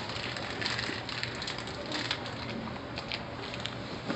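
Plastic snack packet crinkling in the hands in a few short rustles, over a steady low hum of supermarket background noise.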